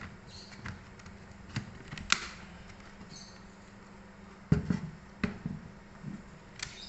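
Scattered sharp clicks and knocks of hard plastic parts being handled, loudest as a quick cluster of knocks about four and a half seconds in, over a low steady hum.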